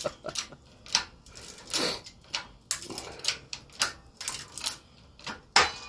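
Harbor Freight 12-ton hydraulic shop press forcing a blade into an electric motor's stator: irregular sharp clicks and cracks, about three a second. The blade is crushing the stator rather than cutting it.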